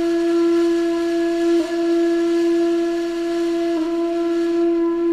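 A flute-like wind instrument holding one long steady note, with two brief breaks about a second and a half and nearly four seconds in.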